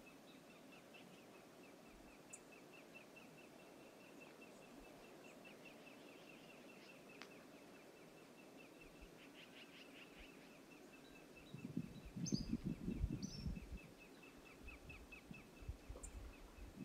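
Faint outdoor background with a rapid, even, faint ticking throughout. About twelve seconds in, a loud low rumbling burst lasts about two seconds, with two short high bird chirps over it, then a few weaker low thumps.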